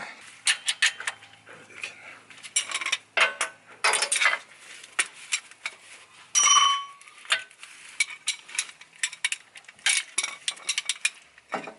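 Metal clicks, clinks and clatter of hand tools and parts being handled, with one short ringing clink about six and a half seconds in.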